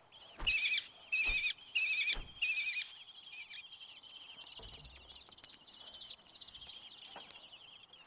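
Fledgling lesser kestrels squabbling, four loud, harsh chittering calls in quick succession. After them, a fainter, steady high trilling carries on.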